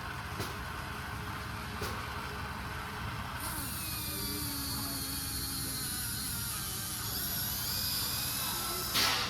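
Small electric motors of a Huina radio-controlled model excavator whirring as it works, a high whine joining about three and a half seconds in, with a brief louder scrape or knock near the end.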